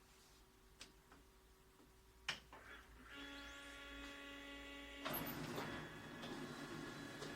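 Toshiba 2303A copier running on test: a couple of sharp clicks, then a motor starts with a steady whine about three seconds in, and about two seconds later the drive mechanism runs louder and evenly. The knocking from the worn drive gear is gone.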